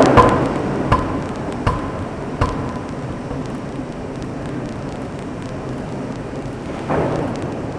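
Two-ton electro-hydraulic open-die forging hammer striking a glowing steel forging: four sharp blows about three-quarters of a second apart, each with a short metallic ring. Steady forge-shop machine noise follows, with a louder rushing swell near the end.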